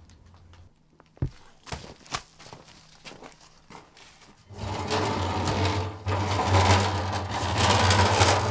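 A few short clicks in near silence, then about four and a half seconds in a loud, steady mechanical buzz with a strong low hum starts and keeps going.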